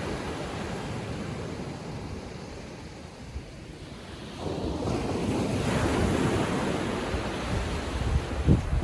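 Ocean waves on a calm sea breaking and washing ashore, with one wave swelling up about halfway through. Gusts of wind buffet the microphone near the end.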